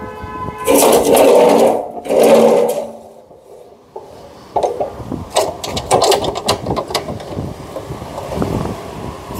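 Metal scraping and clattering as a steel bar studded with screws is slid twice along the chop saw's steel base. After a brief lull come irregular metallic clicks and clanks as the bar is set in place and the saw's vise is worked.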